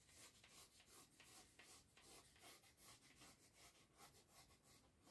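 Faint scratching of a ballpoint pen drawn along cardboard in short repeated strokes, about three a second, as it traces the edge of a foam sabre blade.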